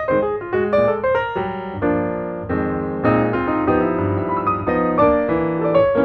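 Background piano music: quick runs of notes, with held chords in the middle.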